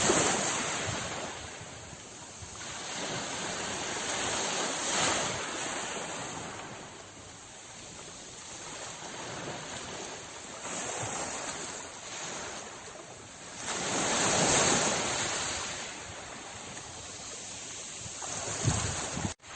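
Sea waves washing in and drawing back, a steady rush that swells in slow surges, the biggest about fourteen seconds in. The sound drops out abruptly for an instant near the end.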